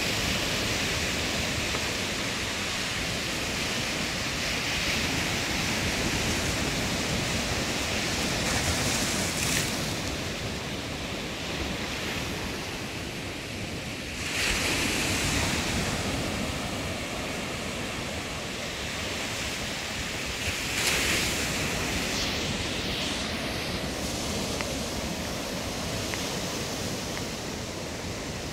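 Sea surf breaking and washing up the shore: a steady rush of foaming waves that swells as bigger waves break, about 9, 15 and 21 seconds in.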